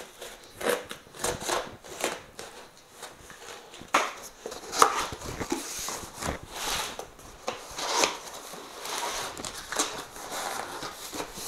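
Long cardboard shipping box being cut open with a knife and its top pulled back, giving irregular scraping, ripping and crackling of cardboard and packing tape.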